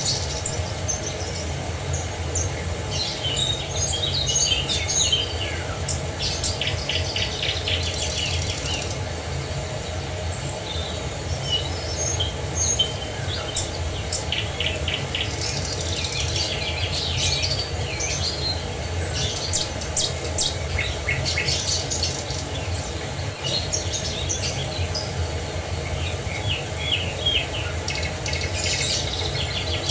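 Several songbirds chirping and trilling, call after call, over a steady low rush of falling water from a waterfall.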